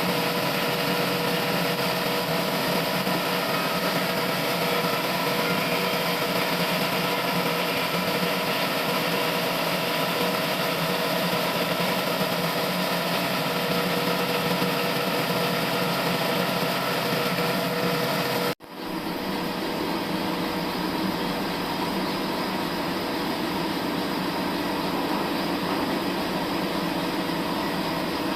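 Sawmill machinery running steadily, a constant motor drone with several fixed tones over a noisy hiss. About two-thirds of the way through it breaks off for an instant and comes back with a deeper rumble and less hiss.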